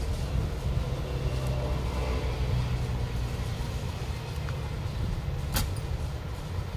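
Steady low rumble of running vehicle engines, with one sharp click about five and a half seconds in.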